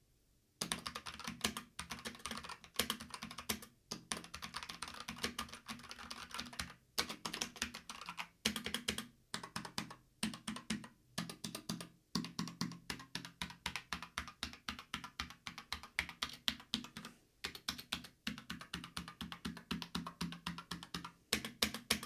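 Fast typing on a Havit KB487L tenkeyless mechanical keyboard with linear Jixian Red switches and PBT keycaps: quick runs of key clicks broken by short pauses, starting about half a second in.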